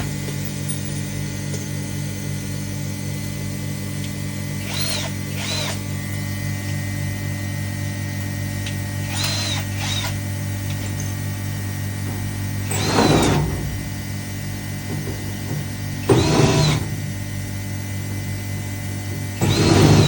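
Vacuum packing machine's pump motor running with a steady low hum; this machine pumps but fails to reach full vacuum, which the repairer puts down to a motor problem and a lack of oil. Over it come about seven short whirring bursts that rise and fall in pitch, the loudest three in the second half.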